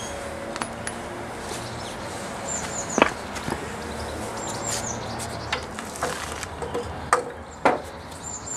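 Occasional metal clicks and knocks from fitting a bolt and spacer through a shock absorber on a Jaguar E-type rear suspension cage, the sharpest about three seconds in. Small birds chirp in short runs of high notes in the background.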